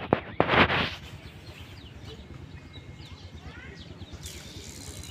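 Birds chirping faintly over a low steady outdoor background. About half a second in there is a short, loud rush of noise, just after a couple of sharp clicks.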